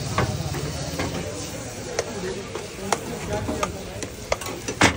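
Oil and moong dal batter sizzling in a black iron frying pan, with sharp clinks of a metal ladle and spatula against the pan and steel trays about once a second, the loudest near the end.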